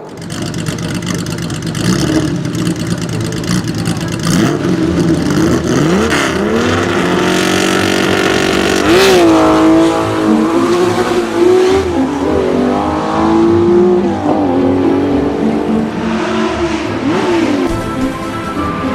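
A car engine being revved: its pitch rises and falls repeatedly over several seconds, with the strongest swells near the middle.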